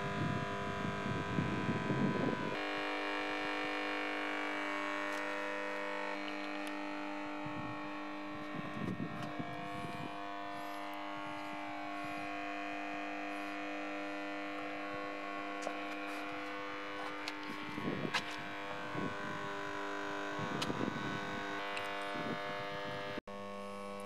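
Small electric water pump humming steadily as it circulates water through the tubing coiled inside the bottles. A few brief low rumbles come and go.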